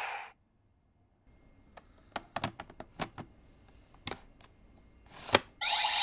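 Scattered plastic clicks and knocks as the CSM V Buckle toy belt is handled, ending in a sharp snap about five seconds in. Right after it the belt's loud electronic sound effect starts.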